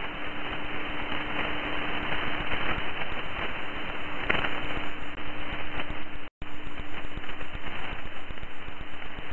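Shortwave radio static from a single-sideband (USB) receiver tuned to 6887 kHz: an even hiss with a steady low tone running through it, cutting out for an instant about six seconds in.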